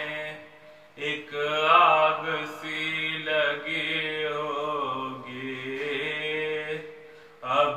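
A man's solo voice reciting a salam, a Muharram lament, in a slow melodic chant with long held and sliding notes, broken by short breath pauses about a second in and near the end.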